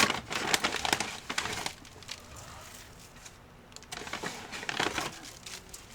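Dry rustling and crunching from hands handling gardening material, in two spells: one in the first second or so and another around four to five seconds in.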